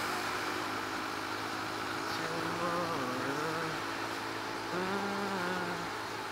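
Motorcycle engine running at a steady cruise, heard from the rider's own bike. Twice in the second half a separate wavering hum rises and falls over it.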